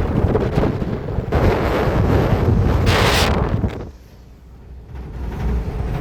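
Wind buffeting the microphone, a low rumbling rush that swells louder about three seconds in, drops away for about a second, then returns.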